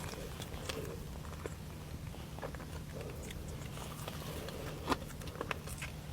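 Close-miked chewing and biting of a pastry: soft mouth clicks throughout, with a few sharper crunches about five seconds in.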